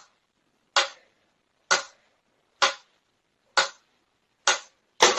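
A sharp click repeated at an even pace, about once a second, with silence between the clicks.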